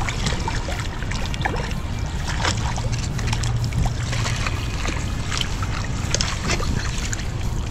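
Hooked trout splashing and thrashing in the shallows and in a landing net, many short sharp splashes, over a steady low rumble of wind on the microphone.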